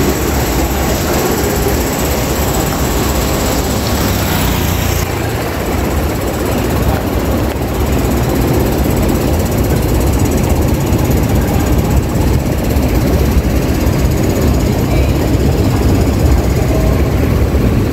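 Street traffic ambience: a steady low rumble of vehicle engines, with a hiss on top that thins out about five seconds in.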